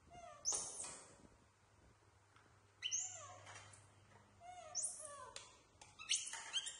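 Baby macaques making short, high-pitched calls that drop in pitch: one near the start, then more around three and five seconds in, and a quick cluster near the end.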